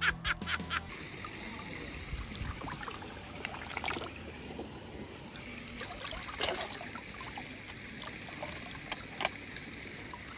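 A steady trickle of running water, with a few faint clicks scattered through it.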